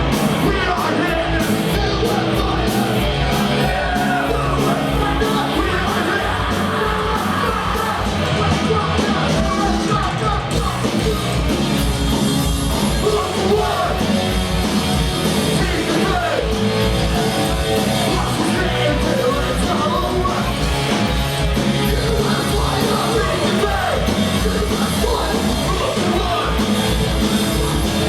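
Punk rock band playing live: loud electric guitars and drums keeping a fast, steady beat, with shouted vocals over them.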